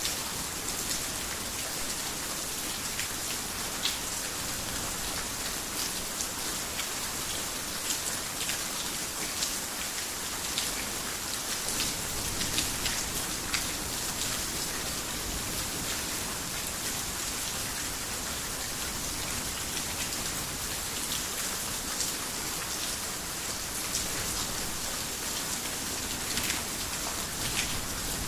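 Heavy rain falling on a roof: a steady, even hiss peppered with many sharper individual drop hits.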